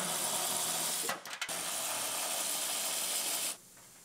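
Power ratchet running as it spins nuts off the fender fasteners, stopping briefly about a second in and then cutting off after about three and a half seconds.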